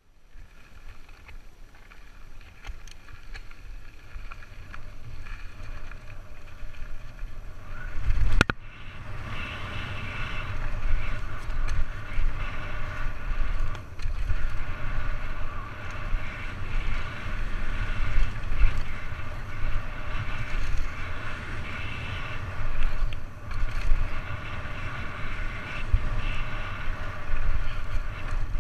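Downhill mountain bike ride heard from a bike-mounted action camera: wind rushing over the microphone and knobbly tyres rumbling over dirt, getting louder as the bike gathers speed. A sharp knock comes about eight seconds in, after which a steady whir runs on over the rumble.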